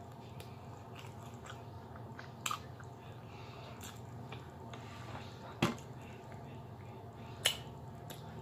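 Close-up eating sounds: a person chewing and smacking on meat eaten by hand, with sharp mouth clicks scattered through and one louder knock a little past halfway, over a steady low hum.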